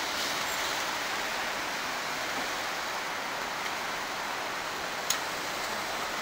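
Steady rushing noise of road traffic, with a Hino Blue Ribbon diesel city bus moving slowly past. A single sharp click comes about five seconds in.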